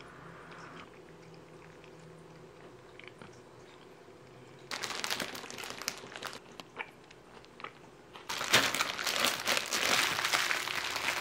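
Thin plastic takeout bag crinkling as it is handled and opened by hand. A short burst of crinkling comes about halfway through, then a few scattered rustles, then loud, continuous crinkling near the end.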